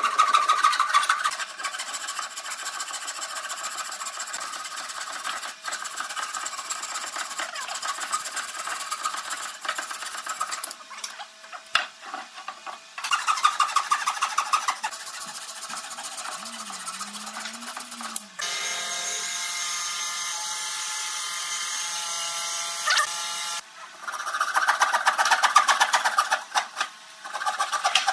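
Hand saw with a long fine-toothed blade ripping along a pine board in quick back-and-forth strokes, in several spells with short breaks. In the middle there is a steadier, even-toned stretch of several seconds.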